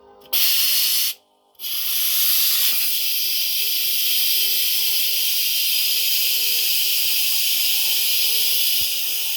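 Electric pressure cooker's steam release valve venting pressurised steam with a loud, steady hiss after pressure cooking. The hiss starts just after the beginning, stops for about half a second, then resumes and cuts off suddenly at the end.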